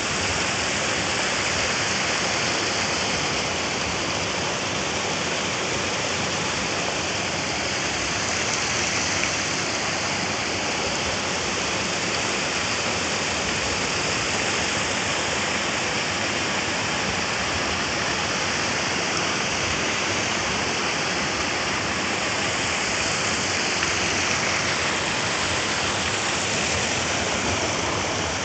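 Water pouring over the concrete weirs between fish-farm raceways: a steady, even rushing.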